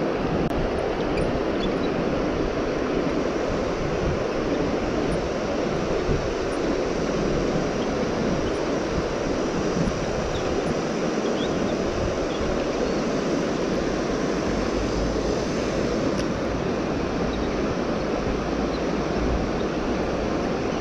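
Fast, shallow river running high over a stony bed: a steady, even rush of flowing water.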